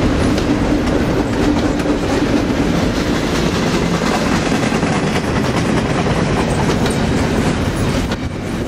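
Double-stack container well cars rolling by close at hand: a steady, loud rumble of steel wheels on rail with a continuous clickety-clack of wheels over the rail.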